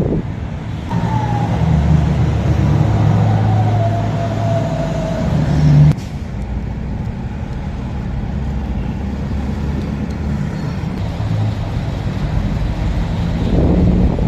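Road traffic at an intersection: a vehicle engine running loud for the first few seconds with a slowly falling whine, cutting off suddenly about six seconds in, then a steadier traffic hum that swells again near the end.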